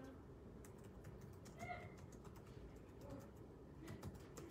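Faint computer keyboard typing: scattered soft key clicks at an uneven pace.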